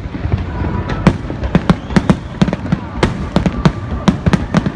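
Fireworks display: aerial shells bursting in a rapid, irregular string of sharp bangs and cracks, about three a second, over a continuous low rumble.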